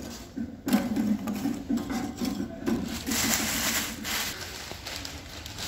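Lumps of charcoal being placed and shifted by hand in a steel grill box, scraping and knocking against each other and the metal grate.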